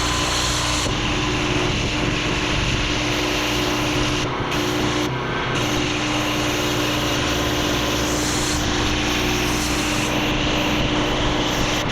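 Pressure washer running steadily with a constant hum, its water jet hissing across a patio to lift caked-on dirt.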